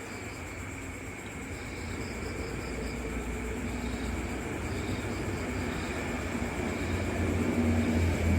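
Eerie night ambience: a low rumbling drone that slowly swells louder, under steady high tones and a few faint groups of high chirps.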